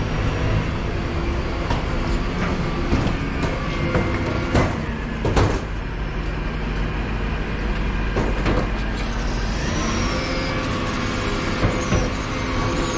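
Refuse collection lorry's engine running steadily, with a few sharp knocks about four and a half and five and a half seconds in.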